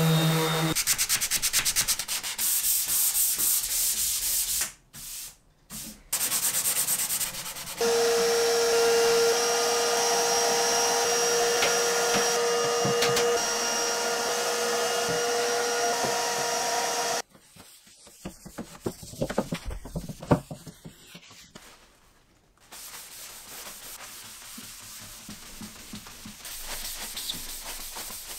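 A DeWalt random orbital sander runs on a wooden cabinet top, breaking off briefly about five seconds in. From about eight seconds, a vacuum cleaner runs with a steady whine and cuts off suddenly a little past the middle. Then come a few light knocks and handling sounds, and finally a faint steady hiss.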